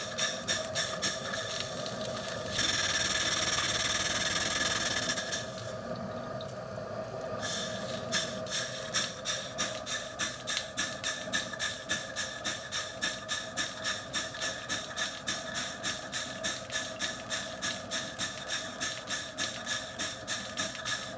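Miniature butane-fired Maxitrak Case live-steam traction engine working hard on the belt against a Baker fan, its exhaust barking up the chimney in regular beats about three a second. About two and a half seconds in, a steady loud hiss takes over for a few seconds, then it goes quieter, and the exhaust beats return about eight seconds in.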